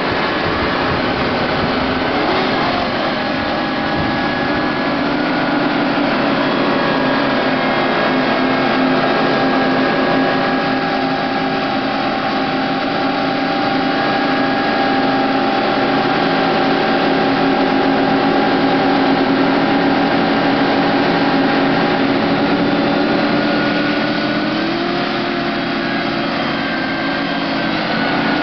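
Several Chevrolet Camaro and Pontiac Firebird engines held at high revs together while their rear tyres spin in a group burnout, a loud steady din of overlapping engine notes over a noisy hiss. One engine note climbs in pitch near the end.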